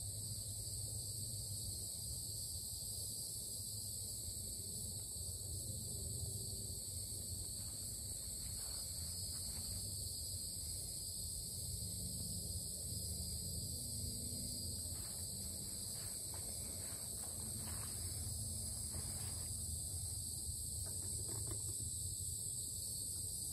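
Steady high-pitched insect chorus, with a constant buzz at two pitches and a low steady rumble underneath. A few faint soft rustles come in the middle.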